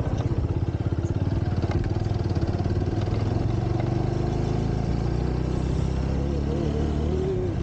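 Motorcycle engine running steadily at low speed as the bike rides along a rough gravel mountain track.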